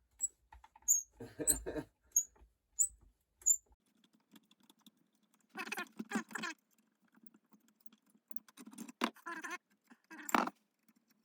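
Light metal clicks, scrapes and a couple of knocks as the parts of an old hand plane are handled and adjusted, with a quick run of sharp ticks at the start.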